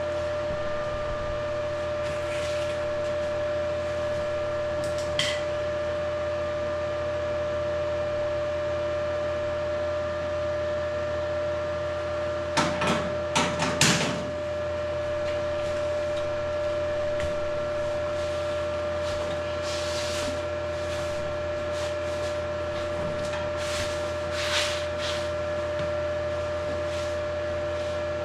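A steady mechanical hum of several fixed tones runs throughout. Occasional knocks sound over it, with a quick cluster of louder knocks about halfway through.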